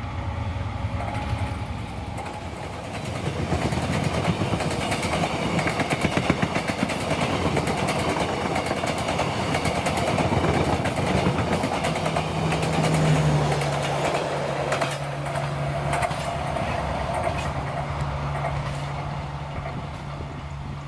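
Passenger train running past close by: a steady rolling rumble of wheels on rails, dense with rapid clicks. A low steady hum joins about twelve seconds in.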